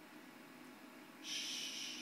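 A short, loud breathy hiss of exhaled air, starting a little past halfway and lasting about a second, over faint room tone.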